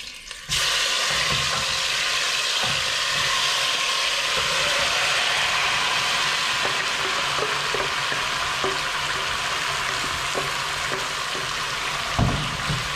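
Browning-marinated chicken pieces frying in hot oil in a pot: a loud, steady sizzle that starts suddenly about half a second in, with a few light clicks and a short low thump near the end.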